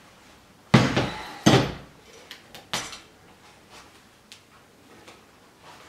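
Two loud clunks about a second apart from a hand-lever bench stud press squeezing a press stud into latex sheeting, followed by a few lighter clicks.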